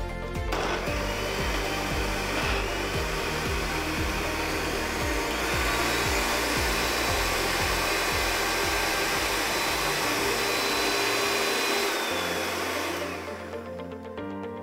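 Countertop electric blender running, blending mango, banana and plain yogurt into a smoothie. The motor starts about half a second in, runs steadily, and cuts off near the end.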